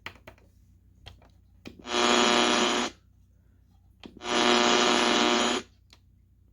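Realistic Chronomatic 260 alarm clock's buzzer sounding twice, a harsh steady buzz about a second long each time, with small button clicks in between.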